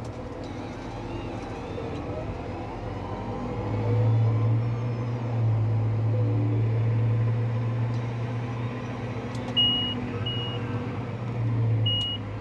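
Valtra N174 Direct tractor's four-cylinder engine heard from the cab, a steady low drone that gets louder about four seconds in as it pulls the square baler. Short high electronic beeps sound in pairs near the end.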